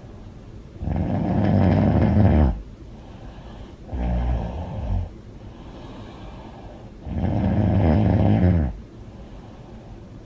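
A woman snoring loudly: three long snores in a regular rhythm, about three seconds apart, the middle one shorter.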